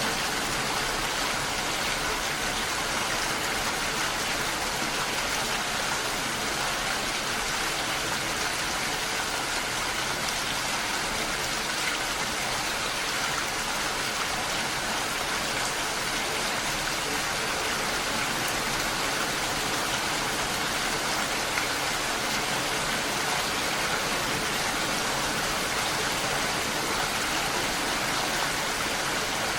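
Steady, even rain falling continuously, a dense hiss with no breaks or individual drops standing out.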